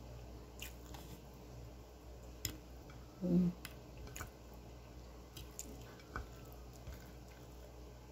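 A person eating with her bare hands: faint chewing and small clicks and squishes of fingers picking food off a plate. About three seconds in comes a short low hum, like an 'mm'.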